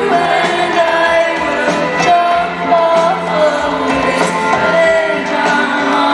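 Live band music heard from the audience in an arena: a voice singing long held notes over a full band, with drum hits.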